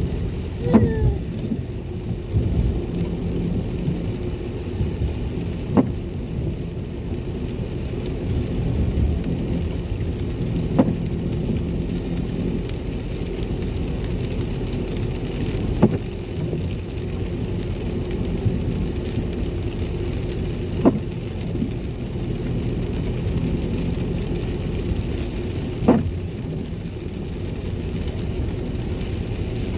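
Inside a moving car in the rain: a steady low rumble of engine and tyres on the wet road, with rain on the windscreen. A short sharp knock comes about every five seconds.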